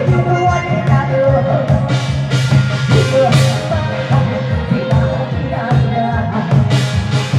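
Live Korean folk-pop song: a woman singing long, held notes over a steady beat, with a large barrel drum (buk) and a gong struck along.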